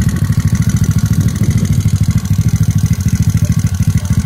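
Icebear Mad Dog scooter's single-cylinder four-stroke engine, bored out to 171cc with a big bore kit, idling steadily with a rapid even exhaust pulse.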